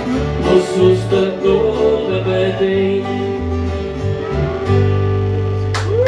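Small live acoustic band playing the instrumental close of a country-folk song on resonator guitar, acoustic guitar and electric bass. The bass steps through notes under strummed chords, then the band settles onto one held chord about five seconds in.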